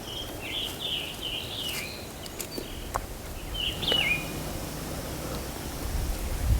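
Songbirds calling: a quick run of short, high chirping notes, then a single downward-sliding call about four seconds in, over a low steady outdoor rumble with a couple of faint clicks.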